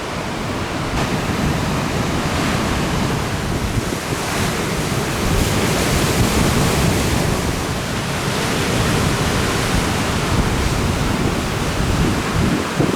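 Ocean surf breaking in a steady rush, with strong trade wind buffeting the camera's microphone in low rumbling gusts.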